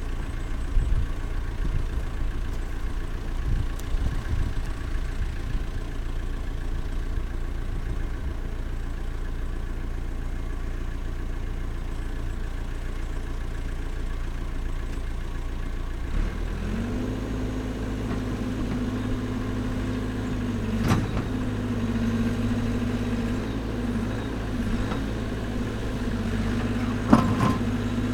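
Caterpillar backhoe loader's diesel engine idling, then a little over halfway through it rises to a steady higher-pitched hum as the backhoe arm is put to work digging. Two sharp knocks stand out in the second half.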